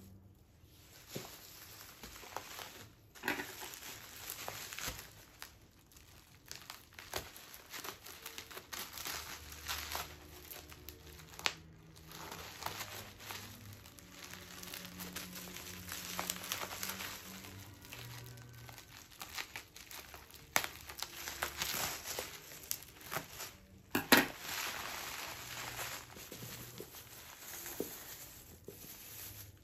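Plastic bubble wrap crinkling and rustling irregularly as it is unwrapped from around a box, with one sharp, louder crackle about three-quarters of the way through.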